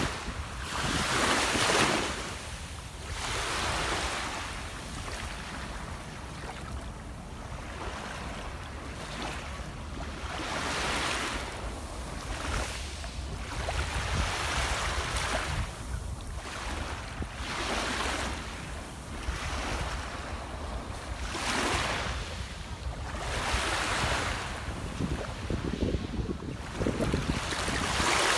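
Sea waves breaking and washing on the shore, a swell every two or three seconds, with wind buffeting the microphone in a steady low rumble.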